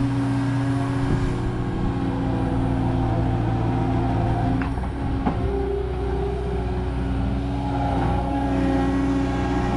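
Skid steer engine running steadily under work, its pitch shifting slightly about halfway through, with two short knocks near the middle.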